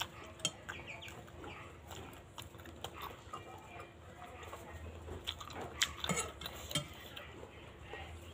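A utensil clinking and scraping against a bowl of bakso in scattered taps, some sharper than others, loudest a little past the middle.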